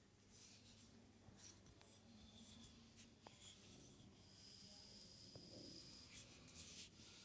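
Faint rubbing and swishing of hands massaging mustard-oiled legs, in repeated strokes with a few small clicks.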